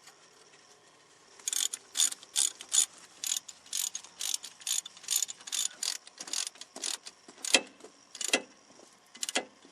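Hand ratchet clicking in repeated strokes, about two or three clicks a second, as it runs in a bolt holding the front wheel hub of a Jeep Cherokee XJ. The strokes thin out to a few single clicks in the last few seconds.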